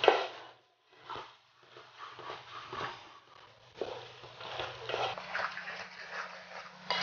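Wooden ladle stirring and scraping diced potatoes and onions frying in a large metal uruli, in irregular strokes, with a sharper knock at the very start.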